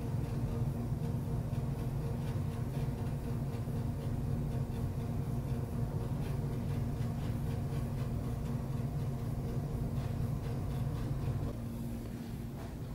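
Steady low indoor hum: a constant rumble with a droning tone over it, easing off slightly near the end.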